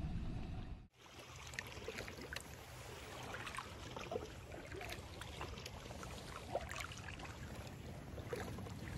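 Small splashes, drips and lapping of lake water around a kayak, over a steady low wind rumble. The sound breaks off briefly about a second in and resumes.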